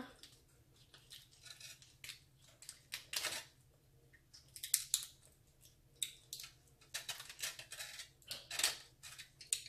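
A large prawn's shell cracking and crackling as it is pulled apart and peeled by hand, in irregular short crackles and snaps.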